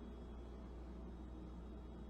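Faint room tone: a steady low hum under a soft hiss, with no distinct sound.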